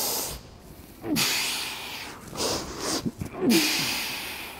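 A man's forceful exhalations, each with a short grunt that drops in pitch: two strong ones a bit over two seconds apart, with smaller breaths between. This is the strain of swinging an 88-pound steel club.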